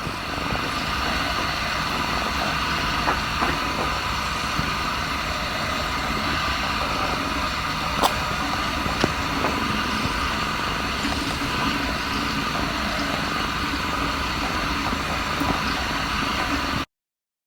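Kitten purring steadily, with a couple of faint clicks about eight and nine seconds in; the sound cuts off abruptly near the end.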